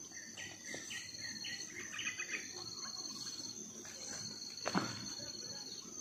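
Insects trilling steadily in a high, even tone, with a bird calling a short run of about five repeated notes in the first two seconds. A single sharp snap sounds near the end.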